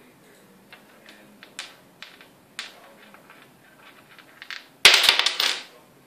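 Budgerigar pecking at and pushing small things about on a wooden desk: scattered light taps and clicks, then a loud rapid rattle of clicks about five seconds in.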